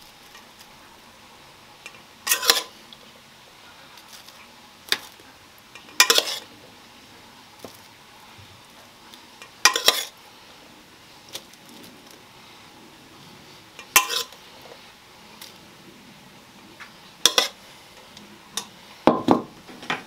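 A metal spoon clinking against metal cookware six times, about every three to four seconds, as a chopped meat and vegetable filling is spooned into a loaf tin; the last clink near the end is a longer double knock.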